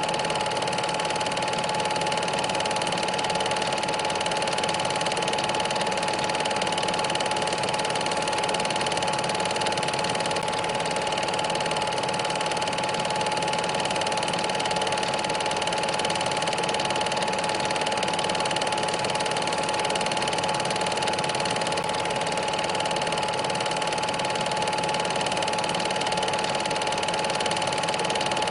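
Home-movie projector running steadily: a continuous mechanical whirr with a constant hum that does not change.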